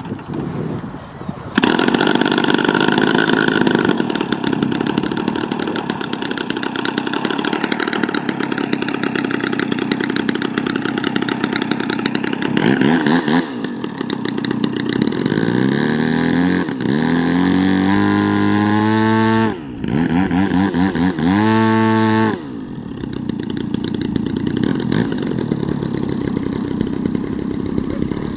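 Extreme Flight Slick 580 3D RC aerobatic plane's engine running loud, rising sharply about a second and a half in. Later its pitch climbs in two rising sweeps, the second cutting back suddenly about 22 seconds in, after which it runs on quieter.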